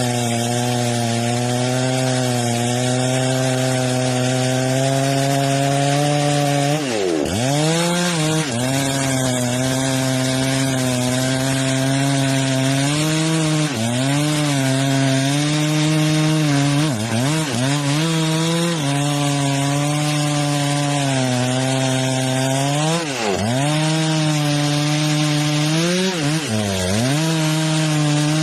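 Chainsaw running at high revs while cutting wood. Its engine note dips sharply and climbs back about six times.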